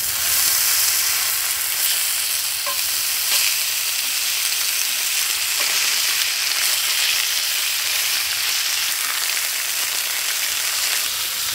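Bacon strips and sliced mushrooms frying in a cast-iron skillet: a steady hiss of sizzling fat.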